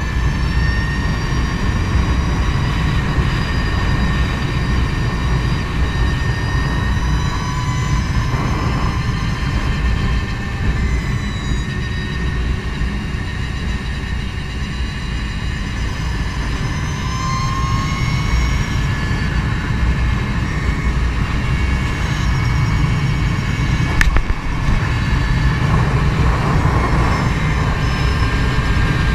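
Wind rushing over the microphone of a moving electric motorcycle, the 2016 Energica Eva. Under the wind is the thin, high whine of its electric motor, rising and falling with speed. A single sharp click comes about 24 seconds in.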